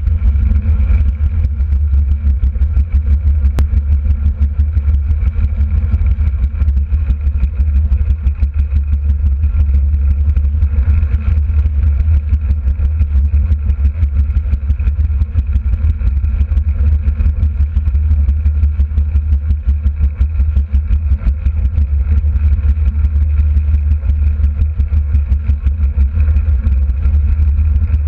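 A derny's small engine runs steadily at track speed with an even drone, under a heavy low rumble of wind on the microphone.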